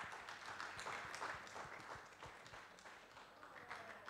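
Small audience applauding with many overlapping hand claps, dying away toward the end.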